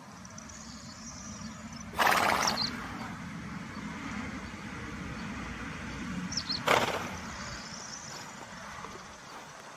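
A horse snorting twice, about four and a half seconds apart, each a short loud blast of breath, over a low steady rumble.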